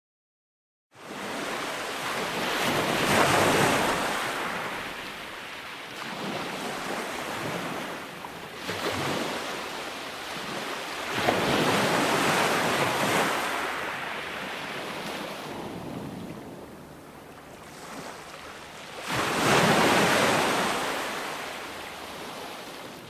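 Ocean waves breaking and washing on a shore, a steady wash that swells into three big breakers about eight seconds apart, with a smaller one between the first two. It starts after a second of silence.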